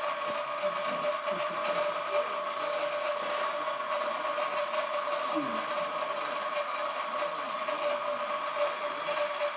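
An electric motor running with a steady, even whine, with faint voices in the background.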